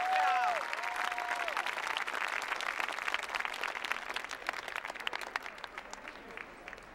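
Arena crowd applauding, with a few high cheering calls in the first second and a half; the clapping thins out and grows quieter toward the end.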